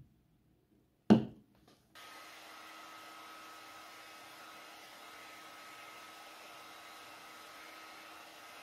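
A single sharp knock, then about a second later a steady whirring hum with a faint high whine starts up and runs on evenly, like a small appliance motor.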